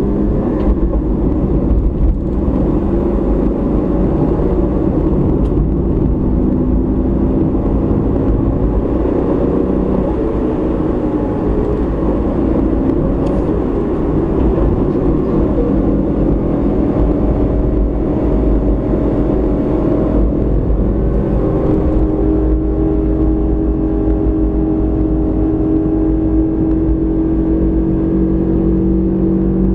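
Car engine and road noise heard from inside the cabin: a steady low rumble with the engine note shifting in pitch as the car drives, then holding steady for the last several seconds.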